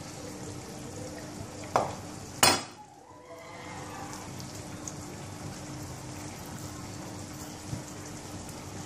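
A kitchen knife knocked twice on a wooden cutting board as it is set down, about two seconds in, over a steady hiss with a faint low hum.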